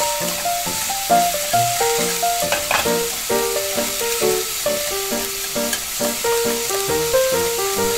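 Hot oil sizzling and bubbling steadily as tempura deep-fries in a miniature ceramic pot, over background music with a simple stepping melody.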